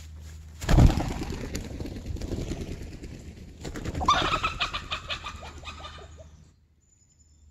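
Chickens startled into flight: a sudden loud flurry of wing-flapping and scattering hay about a second in. From about four seconds in comes a fast run of loud squawking alarm calls as the hens flee, dying away shortly before the end.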